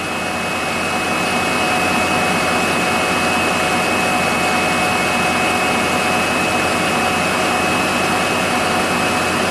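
Stationary diesel locomotive's engine running loud. The sound comes on suddenly, builds over about two seconds and then holds steady: a rushing noise with a steady high whine in it.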